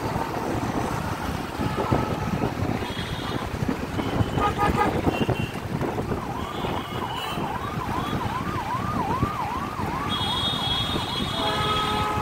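A warbling electronic siren sounding about two swoops a second for some five seconds, over the steady noise of engines in slow, dense road traffic. Vehicle horns beep briefly a few times, and one sounds longer near the end.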